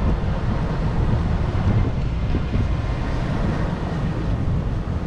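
Wind buffeting the microphone: a steady low rumble over open water.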